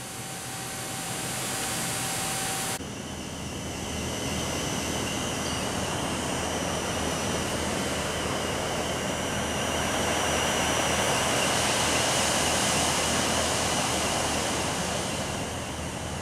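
Steady rushing background noise of a factory floor, from fans and machinery running. A faint steady tone in the first few seconds stops when the noise changes abruptly about three seconds in.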